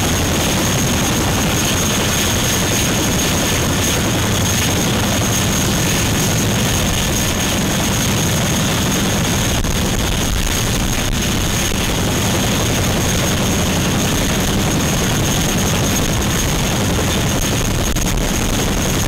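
RAF Chinook tandem-rotor helicopter running on the ground with both rotors turning: loud, steady rotor and turboshaft engine noise, with a thin high-pitched whine held steady over it.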